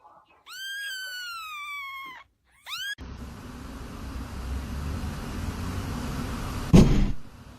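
A cat meowing: one long meow that falls in pitch, then a short rising one. After that comes a steady rumbling noise, with a loud thump near the end.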